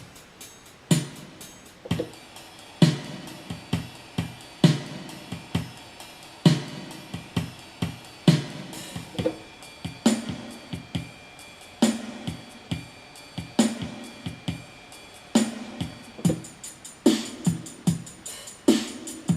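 Yamaha PSR-350 keyboard playing one of its built-in ballad accompaniment styles: a slow drum-kit beat with kick, snare and hi-hat under sustained bass and chord tones. The pattern gets busier about ten seconds in.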